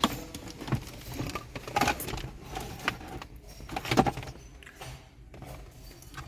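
Scattered light clicks, knocks and rattles of equipment being handled, the loudest about four seconds in: the diagnostic tool's cable being unplugged and put aside.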